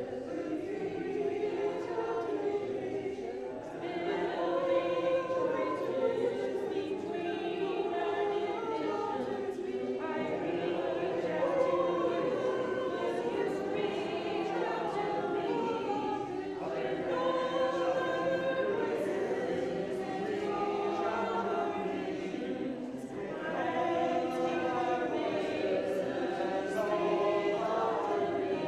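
Congregation singing a song together in phrases, with short pauses between phrases about every six or seven seconds.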